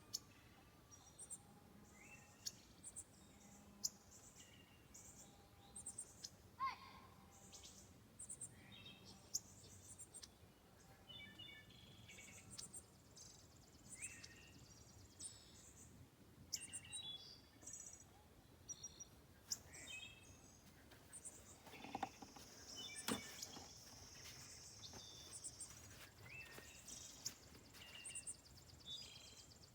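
Faint birdsong: several birds chirping and calling with short, repeated high notes and quick slides, over a low background hiss, with a few light clicks here and there.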